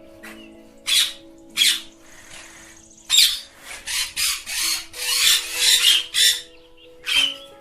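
Ringneck parrots squawking with harsh screeches: two spaced calls, then a rapid run of squawks from about three seconds in, and one more near the end.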